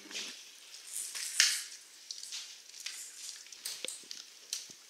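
Wolfdog puppy chewing and gnawing on a plastic vacuum hose: irregular scratchy rustles and clicks, the loudest about a second and a half in.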